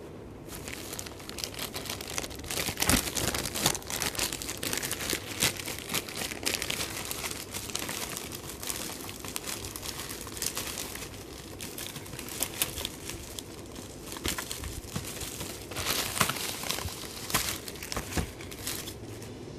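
Bubble-wrap packaging being handled and unwrapped: dense, irregular crinkling and crackling rustles. They start about half a second in, come loudest near the start and again near the end, and stop just before the end.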